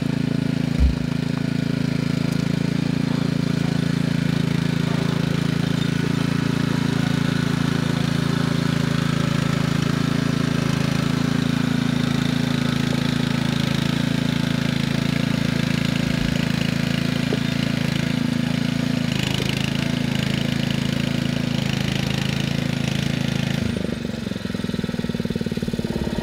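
Small engine of a walk-behind trailer-towing power unit running steadily as it moves a loaded plant trailer, with a thump about a second in. The engine note dips and changes near the end.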